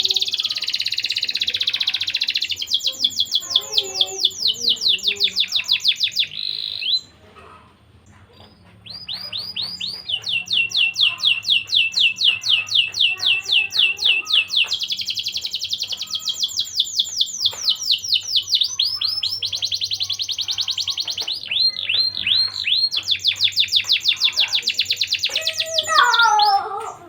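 Domestic canary singing long, rapid trills of repeated high notes, with a brief pause about seven seconds in before the song resumes.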